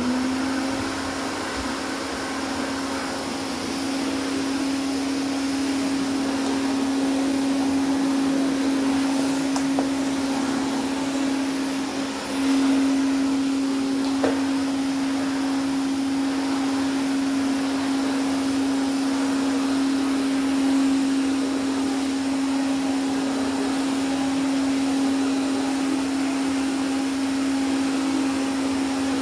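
Hoover Constellation canister vacuum cleaner running steadily, its motor giving a steady hum over a rush of air. The hum dips briefly and comes back slightly stronger about twelve seconds in.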